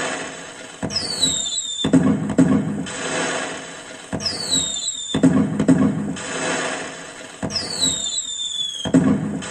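Recorded firecracker sound effect played through a speaker by a pixel-LED cracker-tree controller. A short falling whistle is followed by a bang and fading crackle, and this repeats three times, about every three seconds.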